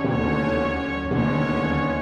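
Orchestral music from a symphony: sustained chords that change to a new chord about a second in.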